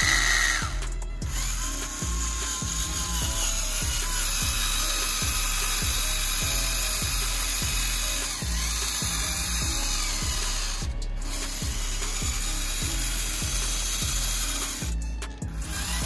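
Small electric gear motor of a homemade RC model tractor running steadily with a mechanical buzz as it pulls a loaded trolley through mud. It cuts out briefly around the middle and again near the end, over a regular low beat.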